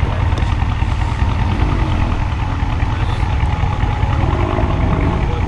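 Mercedes-Benz S63 AMG (W221) twin-turbo V8 with a decat exhaust, idling steadily, a deep, even sound with no revs or pops.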